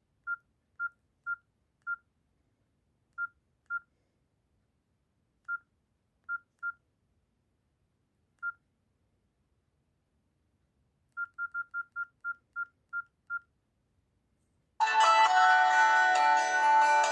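Nokia C5-00 mobile phone keypad tones: short single-pitch beeps at irregular intervals, with a quick run of about nine past the middle. Then, about two seconds before the end, a bright melodic ringtone starts playing, much louder than the beeps.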